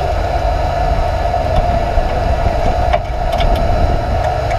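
The 900-horsepower Trophy Truck's engine idling as a steady drone, heard from inside the cab. A few light clicks about three seconds in.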